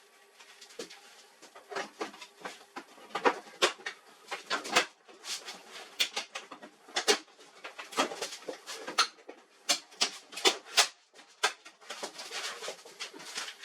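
Irregular string of short clicks and knocks, as of laser-printer parts being handled and fitted by hand.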